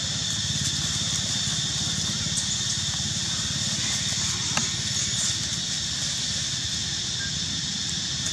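Steady outdoor background noise: an even high-pitched hiss over a low rumble, with a faint click about two and a half seconds in and another about four and a half seconds in.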